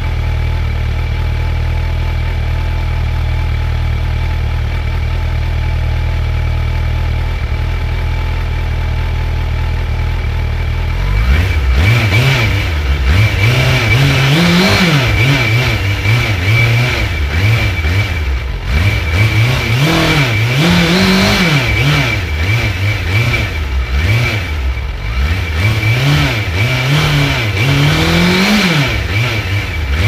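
Suzuki GSF 600 Bandit's inline-four engine idling steadily, then revved repeatedly in throttle blips, the revs rising and falling again each time.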